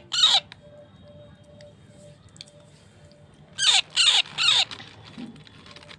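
Baby parrot squawking: harsh, falling calls, one at the start and three in quick succession about three and a half seconds in.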